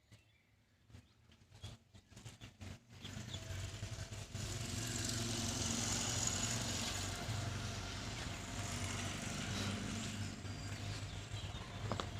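A few sharp knocks, then from about three seconds in a steady engine-like mechanical running sound with a low hum that continues.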